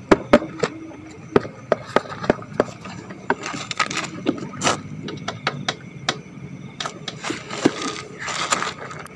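Irregular sharp clicks and knocks, with a few short scuffs, as a parked small motorcycle is handled, its engine not running; the loudest knocks come near the start.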